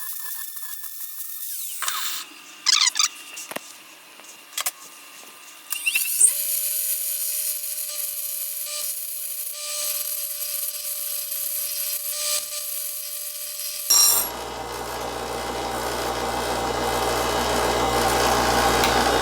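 Angle grinder grinding a steel knife blank to shape, the motor whining and the disc rasping on the steel with scattered clicks. About fourteen seconds in, the sound turns rougher and louder with a low hum.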